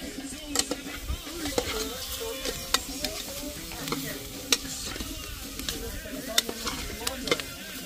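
Metal spoon stirring sliced onions in a metal pot, clinking sharply against the sides at irregular moments over a steady frying sizzle.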